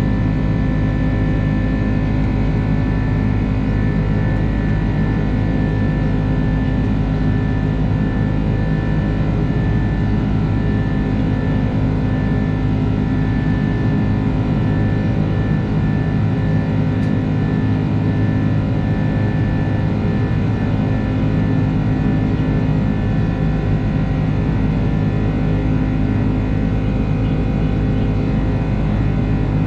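Airbus A330's jet engines droning steadily inside the passenger cabin: several constant tones over a low rumble.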